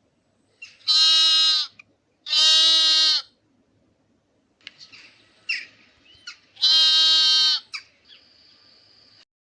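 Sheep bleating three times, each call about a second long and held on a steady pitch, with a long gap before the third.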